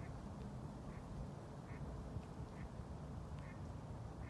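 A duck on the water quacking, short calls repeated at an even pace of about one a second, over a steady low background rumble.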